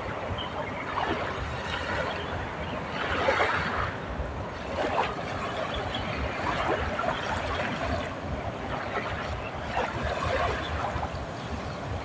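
Small sea waves washing against the shore, the wash swelling now and then over a steady hiss, with wind rumbling on the microphone.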